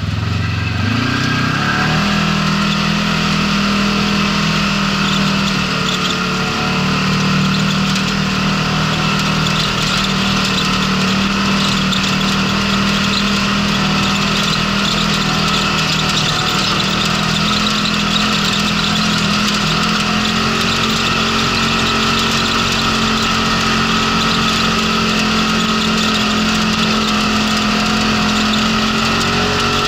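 Polaris RZR side-by-side's engine revving up over the first couple of seconds as it pulls away, then running at a steady pitch while it drives along a rough gravel trail.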